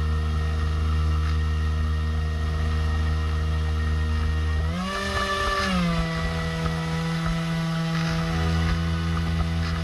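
Radio-controlled Swamp Dawg model airboat's motor and propeller running steadily, heard from on board. It revs up sharply about five seconds in, holds for about a second, then eases back down to a steady cruise.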